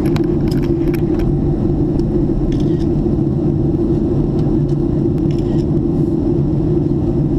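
Steady drone of a jet airliner's cabin in flight: engine and airflow noise heard from a window seat, with a low hum held at one pitch. A few light clicks sound in the first second or so.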